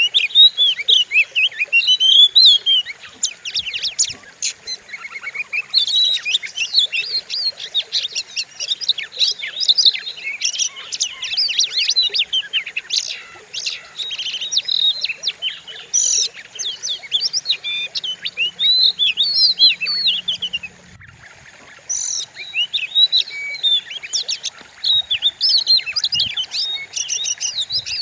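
Oriental magpie-robin (kacer) singing a fast, dense run of sharp whistles and chirps, with a short break a little after three-quarters of the way through.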